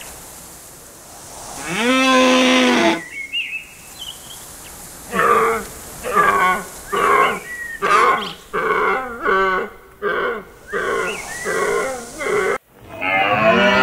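A herd of deer calling: one drawn-out, moo-like call about two seconds in, then a run of short calls about two a second, and another long call starting near the end.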